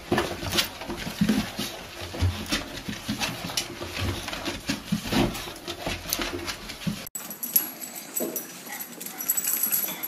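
A small dog running in circles chasing its own leash: irregular scrabbling, clicks and knocks of paws and claws on the floor, with light thuds. About seven seconds in, the sound cuts abruptly to a quieter recording of another dog chasing a leash.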